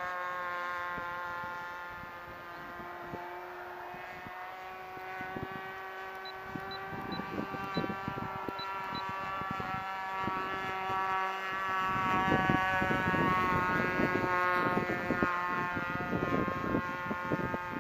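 A Super Tigre .51 two-stroke glow engine with a Pitts-style muffler, powering a 1/6-scale RC Piper Pawnee in flight, runs at a steady pitch. From about twelve seconds in, wind gusting on the microphone grows louder over it.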